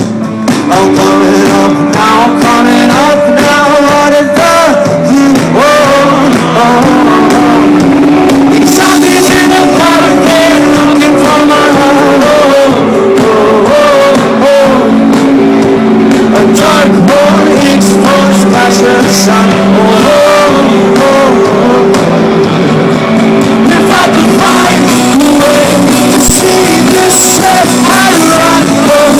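Rock band playing live, loud: a lead singer over guitars and drums.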